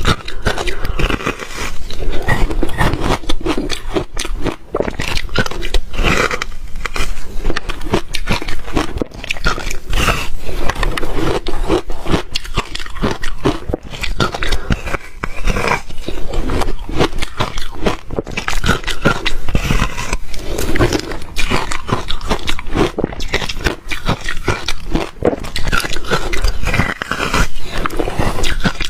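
A person biting and chewing reshaved refrigerator ice, close to the microphone: dense, continuous crunching and crackling without a break.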